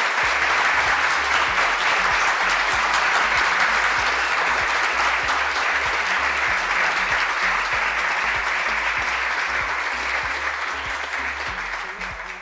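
A large crowd applauding steadily, fading away near the end.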